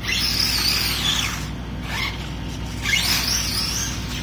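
Electric RC buggy accelerating twice in short bursts. Each time its motor whines up and then down with a rasp from the tyres on concrete.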